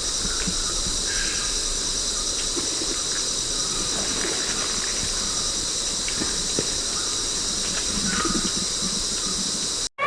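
Steady high-pitched drone of insects in forest ambience, with faint scattered rustles and knocks underneath; it cuts off abruptly near the end.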